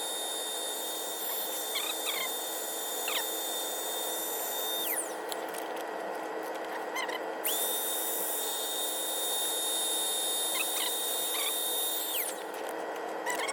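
Small electric air pump running as it inflates an air mattress, a steady motor hum with a high whine. The whine drops out about five seconds in and comes back about two and a half seconds later. The motor is getting a little hot.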